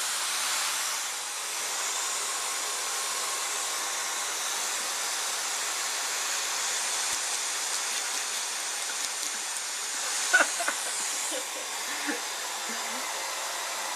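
Vacuum cleaner running steadily, a continuous airy rush. A few short, sharp sounds break through about ten seconds in.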